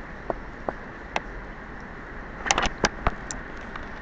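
Thunderstorm rain falling steadily as a continuous hiss, with scattered sharp taps and clicks, a quick run of them about two and a half seconds in.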